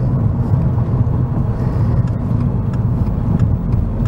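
Steady low rumble of engine and road noise inside the cabin of a new Subaru WRX with its 2.4-litre turbocharged flat-four, heard while the car is being driven.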